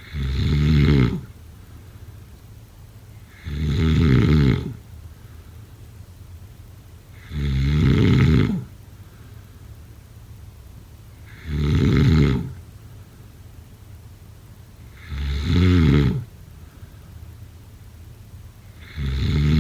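Snoring in sleep: loud, regular snores, each lasting about a second and coming about every four seconds, six in all.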